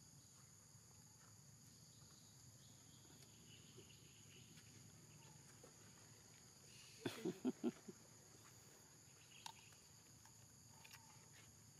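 Steady, high-pitched drone of forest insects, several constant tones, under a quiet background. About seven seconds in, a short cluster of four quick voice-like sounds rises above it.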